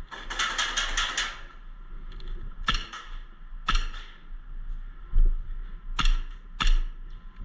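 Airsoft gun shots: a quick burst of about eight sharp cracks in the first second, then four single shots spaced a second or more apart.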